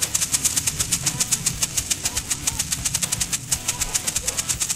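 Background music with a fast, even shaker-like beat of about ten ticks a second over a steady low hum.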